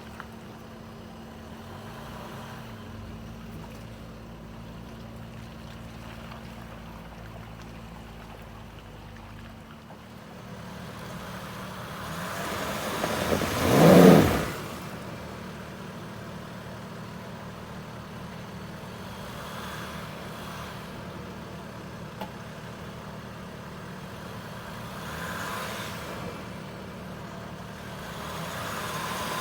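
A motor vehicle driving past close by, swelling up to loudest about fourteen seconds in and fading away, with fainter passes later. A steady low hum underneath stops about ten seconds in.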